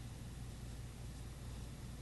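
Steady low hum with an even hiss: room tone, with no distinct sound events.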